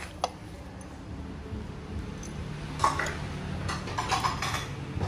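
Ceramic bowls knocking and clinking as they are handled and set down: one light click a quarter-second in, then a run of soft knocks and rattles from about three seconds on.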